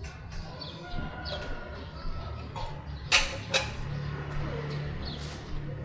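Street-vendor ambience: small birds chirping now and then over a low background hum, with two sharp clacks about half a second apart a little past the middle.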